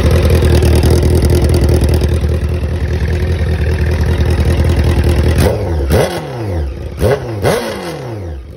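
2008 Honda CBR1000RR inline-four motorcycle engine running on its first test start. It idles steadily, then near the end is blipped about three times, the revs jumping up and falling back after each.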